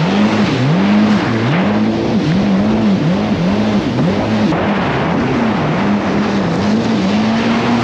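Jet ski engine running at speed, its pitch rising and falling over and over, roughly every 0.7 s, before settling steadier near the end, under the rush of spray and wind on the microphone.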